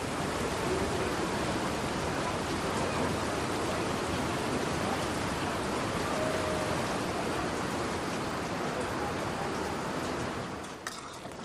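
A steady, even rushing noise with no distinct events, fading away near the end.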